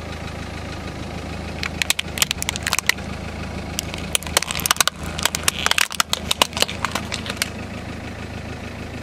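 A car tyre rolling over hard plastic toys, a figure and a toy auto-rickshaw, cracking and snapping them apart in two bursts of sharp breaks, the first under two seconds in and the longer one from about four to seven seconds. The car's engine idles with a steady low hum underneath.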